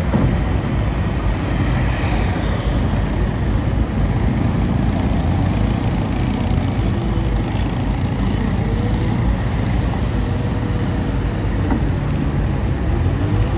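Bulldozer's diesel engine running steadily with a low rumble, with a few scattered knocks and clatters over it.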